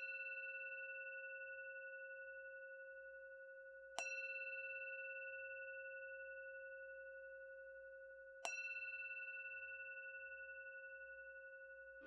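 A struck bell tone rung three times, about four seconds apart. Each strike rings on in a few clear overlapping pitches that fade slowly with a faint waver.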